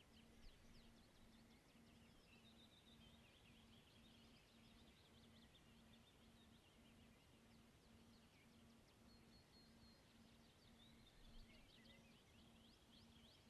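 Very faint woodland ambience: small birds chirping and trilling, high and thin, throughout.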